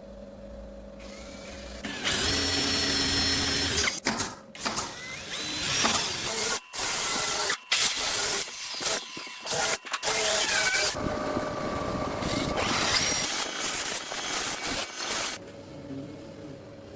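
Handheld power tool running in bursts, starting about two seconds in, cutting out and back in several times, and stopping shortly before the end. A faint steady hum sits underneath.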